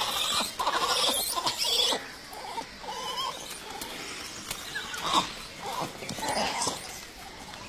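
Langurs calling: a loud burst of overlapping, wavering calls for about two seconds, then a few fainter scattered calls.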